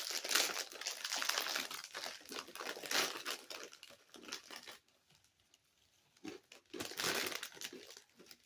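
A snack bag crinkling and being torn open: a dense run of crackles for about four and a half seconds, a pause, then more crinkling.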